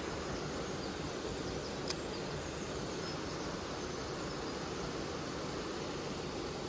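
Steady rush of a mountain stream flowing over rocks, with one sharp click about two seconds in.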